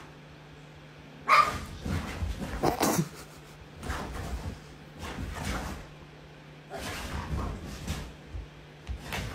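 A dog barking several times in short sharp barks spread through the few seconds, the loudest about a second in.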